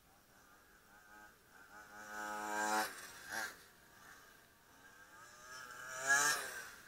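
Quarter-scale radio-controlled Formula 1 cars running past at speed, their motors giving a high, buzzing, pitched note. One builds up to a loud pass about three seconds in and cuts away. A second car passes close near the end, its pitch dropping as it goes by.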